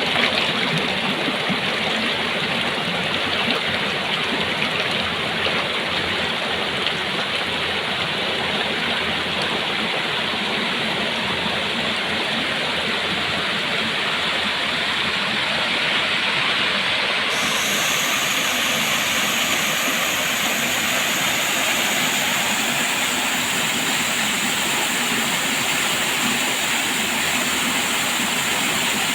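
Waterfall rushing steadily, an even wash of falling water. A little over halfway through, the sound turns abruptly brighter and more hissy.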